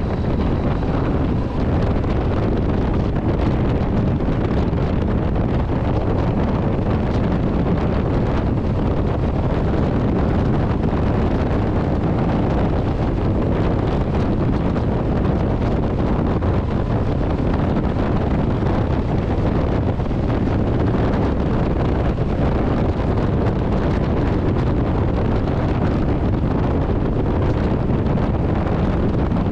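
Steady wind rush on the camera microphone from a Yamaha XT1200ZE Super Ténéré riding at road speed, with the bike's parallel-twin engine running underneath.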